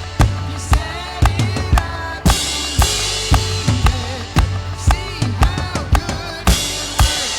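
Drum kit playing a steady worship-song groove, kick and snare hits about twice a second, over a full band backing track.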